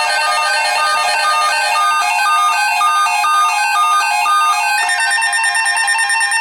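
Several NOAA weather radios sounding their alert alarms at once, a dense overlapping mix of electronic beeps and warbling tones, one of them beeping about twice a second. This is the alarm for an incoming tornado watch. The alarms cut off together near the end as the broadcast voice takes over.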